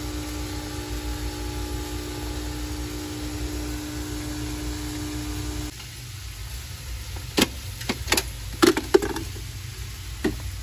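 Nespresso Vertuo coffee machine humming steadily as it brews coffee into a glass mug of ice, cutting off about six seconds in. Then a few sharp clinks of a spoon and ice against the glass mug.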